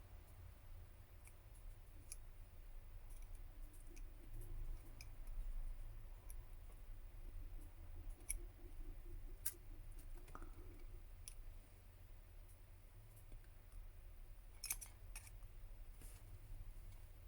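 Faint, scattered clicks and scrapes of small hand tools working on a smartphone's internal parts as its loudspeaker module is pried loose, over a low steady hum.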